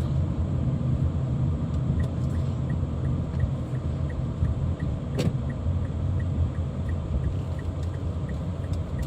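Car on the move, heard from inside: a steady low rumble of engine and road noise. About two seconds in, a light regular ticking starts at about three ticks a second, and there is one sharp click about halfway through.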